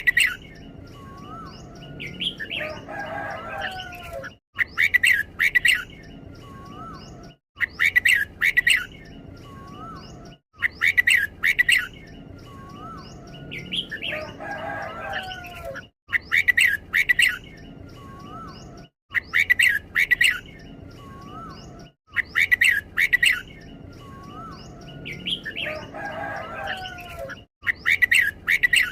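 Red-whiskered bulbul singing its doubled song, a bright two-part phrase repeated about every three seconds, with a lower warbling phrase roughly every six seconds.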